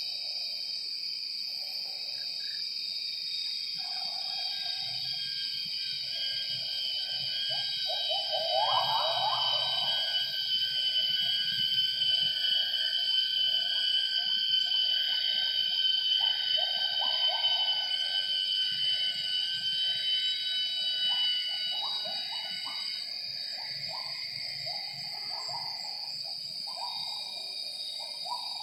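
Wild gibbons singing in the rainforest: a series of hooting notes, with a rising whoop about nine seconds in and notes coming faster and closer together from about halfway through. Over this runs a steady high drone of rainforest insects.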